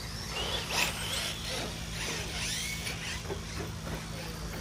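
Electric RC cars' motors whining, rising and falling in pitch as they speed up and slow down, loudest about a second in, over a steady low hum.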